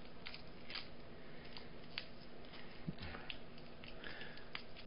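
Faint, scattered crinkles and ticks of an old trading-card pack's cellophane wrapper as fingers pick at it and peel it off.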